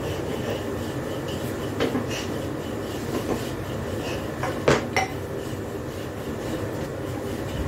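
Light clinks and knocks of metal hand tools being handled and set against wooden beams, with two sharp clacks close together a little under five seconds in, over a steady background hum.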